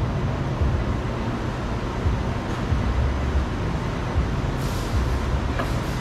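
Steady low rumble and hiss of background noise, with a few faint clicks.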